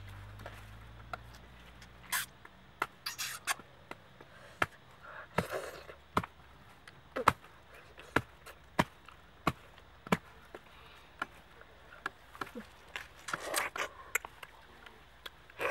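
Close-up eating sounds from someone sucking and chewing the pulp of a ripe palmyra (sugar palm) fruit: a run of wet mouth clicks and smacks, about one or two a second, with a few longer slurps, the loudest about three-quarters of the way through.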